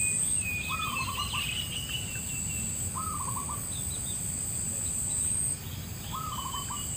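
Birds calling over a steady high insect drone: a short trilled call repeats three times, about two to three seconds apart, with thin higher chirping in the first half. The insect drone cuts out about five and a half seconds in.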